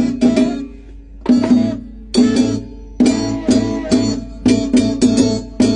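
Latin (salsa-style) music: rhythmic strummed guitar chords over bass, with a short break about a second in before the strumming picks up again.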